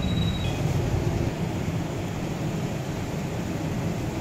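Steady low rumble of street background noise, like passing traffic.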